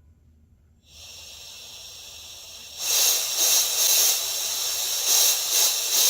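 Compressed air hissing out of a scuba regulator on its tank: a soft hiss begins about a second in, then turns much louder and stays steady from about three seconds in.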